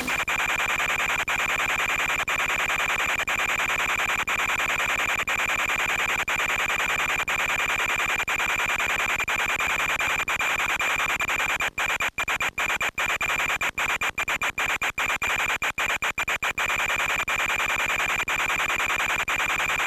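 Steady radio hiss with a constant high whine from the audio channel of an FPV video link, cutting out in many brief dropouts about twelve to seventeen seconds in.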